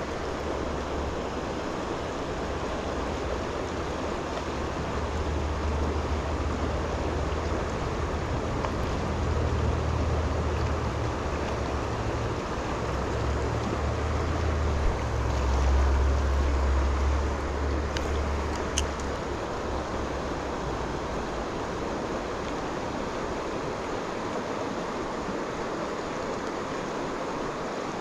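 Steady rushing of a river's current, with a low rumble rising and falling in the middle and two brief clicks a little past halfway.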